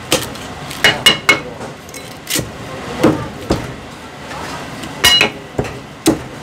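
Heavy Chinese cleaver chopping crispy-skinned roast pork belly on a thick wooden chopping block: about ten sharp, irregular chops, a few with a brief metallic ring from the blade.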